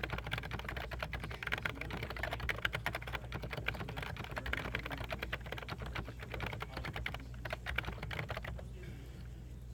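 Fast, continuous typing on a Topre Realforce 104U Silent keyboard fitted with BKE Redux Light domes: a dense stream of keystrokes that stops near the end.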